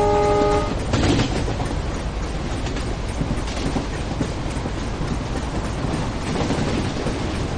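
A train horn blast cuts off under a second in. A knock follows, then the steady rumble and rattle of a moving train, with faint clatter of the wheels over rail joints.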